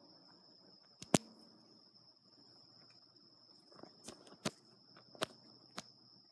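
Steady high-pitched insect drone, like crickets, with a handful of sharp snaps or clicks: a loud one about a second in and four more spaced over the second half.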